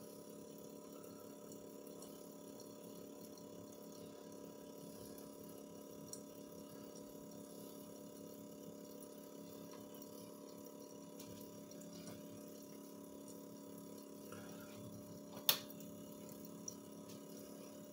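Small water pump running steadily with a low hum, while a thin stream of water trickles into a steel sink. A single sharp click sounds about three-quarters of the way through.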